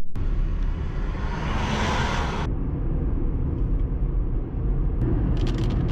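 Road and engine noise inside a moving car's cabin: a steady low rumble. A hiss swells to about two seconds in and then cuts off suddenly, and a few short ticks come near the end.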